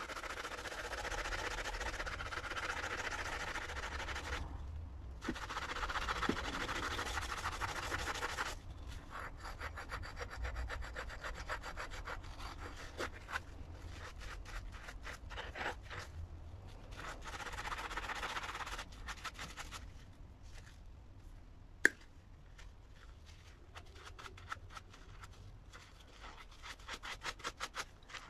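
Scouring sponge scrubbing a rusty wire cutter in soapy water: long stretches of wet, scratchy rubbing that turn into quicker, shorter strokes near the end, with one sharp click a little past the middle.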